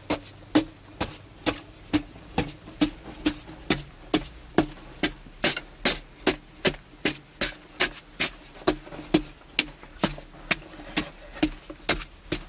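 A short-handled digging tool chopping into a packed clay earth wall by hand, in steady, even strokes about two a second.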